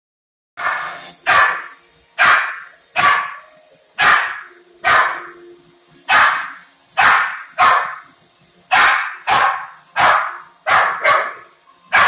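Puppy barking repeatedly at a robot vacuum: about fifteen sharp barks, roughly one every three-quarters of a second.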